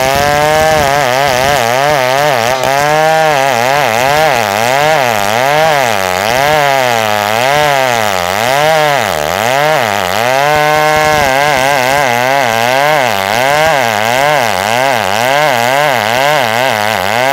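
Two-stroke chainsaw ripping lengthwise through a squared Bornean ironwood (ulin) log, running at high revs under load. Its pitch wavers up and down about twice a second as the bar bites and eases in the hard wood, with one deeper drop a little past the middle.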